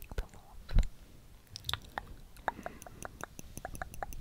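Close-miked ASMR mouth sounds: a string of soft, wet clicks and smacks, about three or four a second in the second half. There is a heavier thump about a second in.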